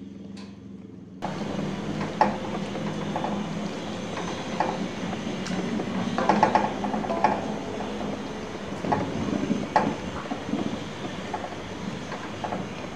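Soup simmering in a stainless steel wok, a steady hiss and hum that turns suddenly louder about a second in, while a plastic ladle stirs the broth and knocks and scrapes against the wok now and then.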